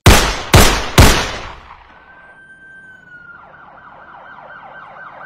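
Three loud hits about half a second apart, each ringing out, as title-card impact effects. Then a steady high tone that dips slightly and breaks into a siren's fast rise-and-fall yelp.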